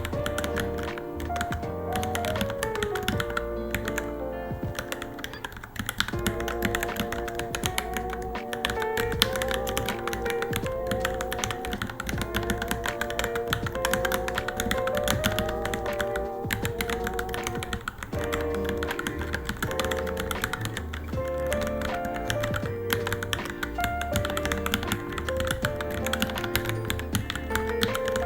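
Steady, fast typing on a Varmilo Minilo mechanical keyboard, keystrokes clicking in quick succession, over background music with a melody.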